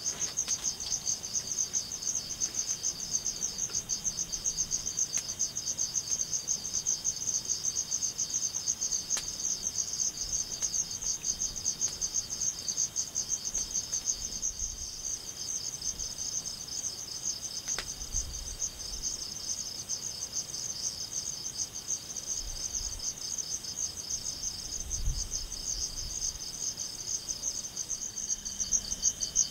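Steady chorus of crickets trilling in a fast, even pulse, with a few faint clicks and low thuds.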